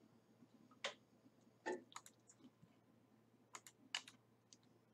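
Faint, scattered clicks of a computer mouse and keyboard keys, about eight in all, some in quick pairs.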